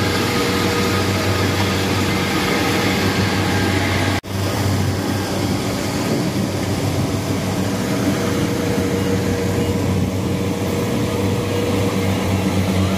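Kubota DC-70 Plus rice combine harvester's engine running steadily under load as it harvests, a constant hum, broken once by a short dropout about four seconds in.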